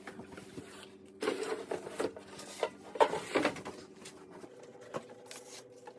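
Cardboard box and packaging of an air fryer being handled: a few seconds of scraping and rustling with a sharp knock about three seconds in, over a faint steady hum.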